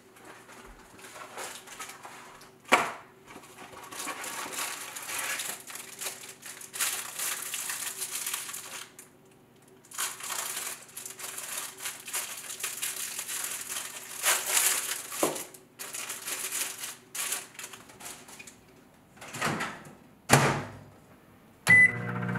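Kitchen handling sounds: a knock, then long stretches of rustling as food is handled at the counter, and a few more knocks. Near the end comes one short beep as the microwave's Start button is pressed, followed by the microwave's low running hum.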